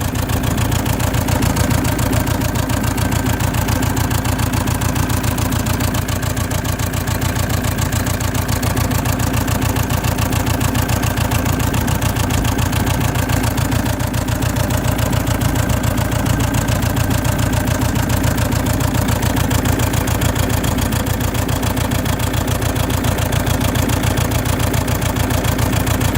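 Saab 9-3 1.9 TiD four-cylinder diesel engine idling steadily with an even diesel clatter, running with a misfire that the owner reports along with white smoke.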